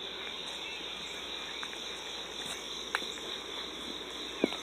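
A steady insect chorus of crickets chirring as one unbroken high-pitched drone, with two faint short knocks, one about three seconds in and one near the end.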